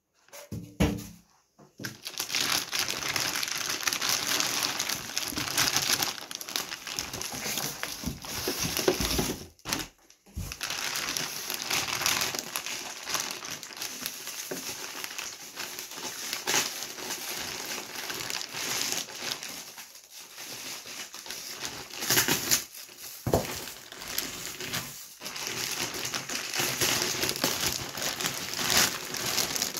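Clear plastic packaging bag crinkling and rustling as hands pull and work it off a dehumidifier, starting about two seconds in and going on almost without a break, apart from a short pause about a third of the way through.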